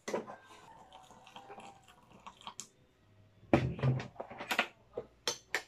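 Small clicks and clatter of kitchenware being handled: a spoon tapping a glass and a plastic packet, then a burst of louder knocks and rattles about three and a half seconds in as a plastic thermos jug is picked up, and two sharp clicks near the end.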